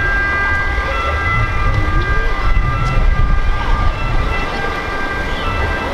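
Street traffic: a steady low rumble of vehicles, with several steady high-pitched whining tones over it that come and go.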